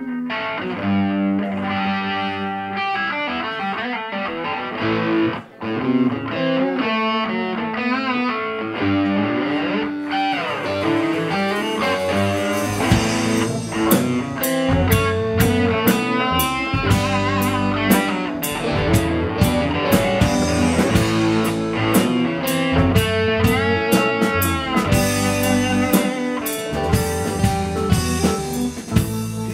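Rock band playing live: an electric guitar plays the intro alone, then bass and drums with cymbals come in about a dozen seconds in and the full band plays on.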